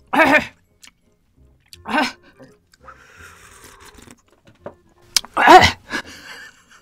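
A woman's pained grunts at the heat of extremely spicy noodles: three short voiced groans, one at the start, one about two seconds in and a longer, louder one about five and a half seconds in, with soft slurping of broth between them.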